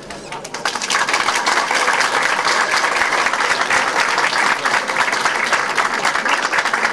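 A crowd applauding, the clapping swelling about a second in and then holding steady.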